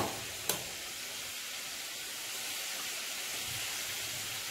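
Two sharp clinks of a slotted metal spoon against the dish, right at the start and half a second later, then a steady soft hiss of the hot pork stew sizzling.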